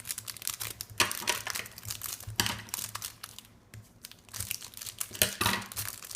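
Packaging crinkling and tearing as a new speed cube is unwrapped, in irregular crackles with a short lull a little past halfway.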